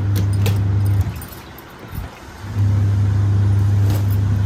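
Semi-automatic washing machine's wash motor humming steadily, cutting out just after a second in and starting again about a second and a half later, the pause of the wash cycle as the pulsator changes direction. A few light clicks from clothes being handled are heard near the start and near the end.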